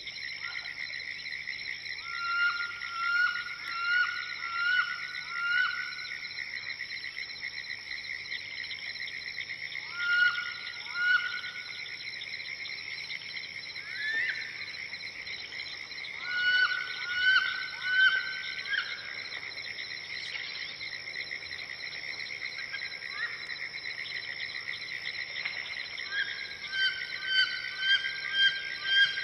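Swamp soundscape: a steady, high-pitched chorus of insects and frogs. Several times a short call of four to six quick repeated notes breaks in over it.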